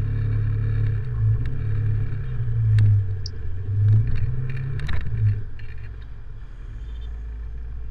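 Motorcycle riding along, its low engine rumble and wind noise on the action camera swelling and easing, quieter in the second half, with a few sharp clicks near the middle.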